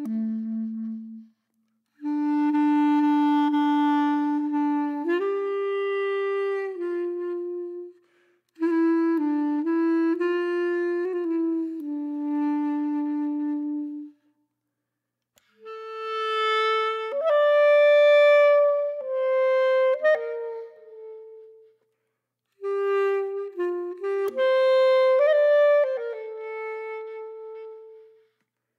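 Music: a clarinet-like woodwind melody of held notes, in phrases of five to six seconds separated by brief silences.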